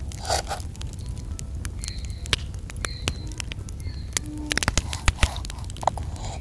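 Kitchen knife cutting mashed-potato dough into strips on a flour-dusted board, the blade clicking and tapping against the board, with a quick run of louder taps a little past halfway.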